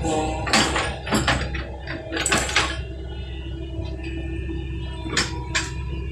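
Backhoe engine running steadily, with irregular metallic clanks from the machine working, most of them in the first three seconds and a couple more near the end.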